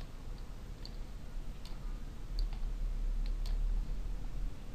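Computer mouse button clicking: about eight short, sharp clicks at irregular intervals as labels are dragged and dropped, over a low steady hum.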